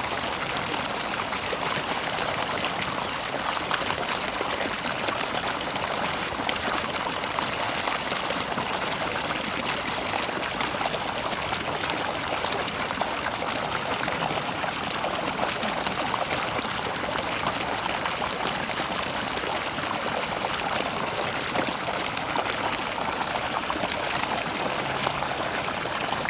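Water running steadily, an even trickling rush that holds constant throughout with no breaks.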